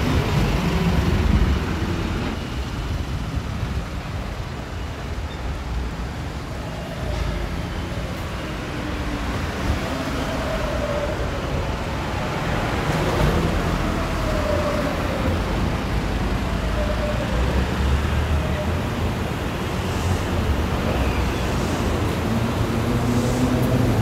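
City road traffic: vehicles running past in a steady rumble, with faint engine tones sliding in pitch as they pass.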